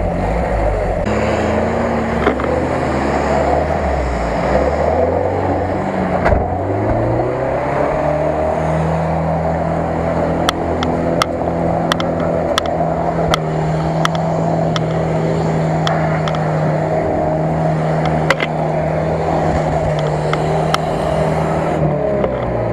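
A UAZ off-roader's engine pulls through deep mud. Its pitch climbs as it revs in the first few seconds, then it holds a steady drone. Through the middle there is a scatter of short sharp knocks.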